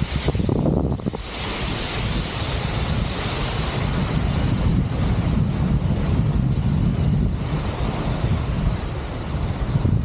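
Wind noise on the microphone: a steady low rumble of airflow. Over it sits the hiss of a waterfall close by, strongest in the first few seconds and weaker after.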